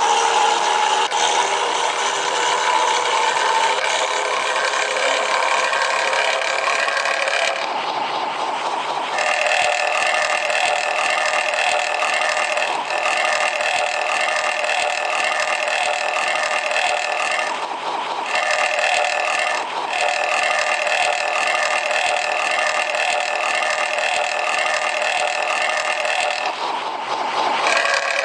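Bus air horn playing the 'bumel' horn sound, nicknamed 'batuk berdahak' (phlegmy cough), in long held multi-tone blasts. It breaks off briefly about a quarter of the way in, twice more in the middle and once near the end, and holds a steadier chord after the first break.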